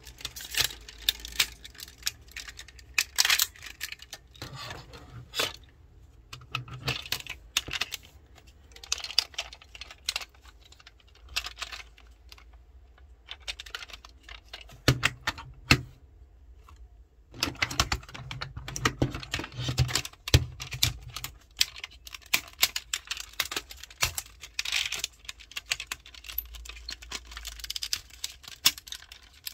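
Plastic clicks and snaps as a Tobot transforming toy car-robot's parts are folded, turned and locked into place by hand. The clicks come in irregular runs, with a quieter gap of a few seconds about halfway through.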